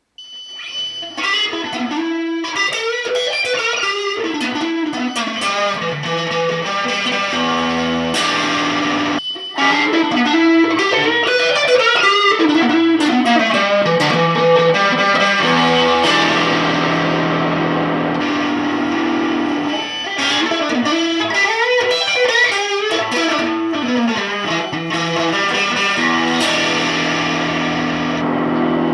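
Electric guitar played through a Boss Katana 50 Mk II combo amp as a sound check, picking melodic lines and letting chords ring, with a brief break about nine seconds in.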